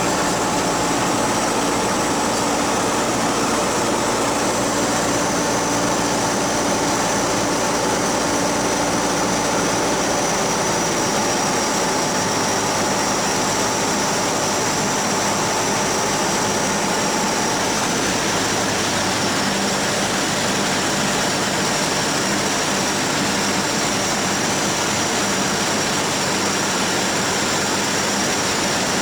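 Small propeller plane's engine and propeller running steadily, heard from inside the cabin as a loud, even drone with no break.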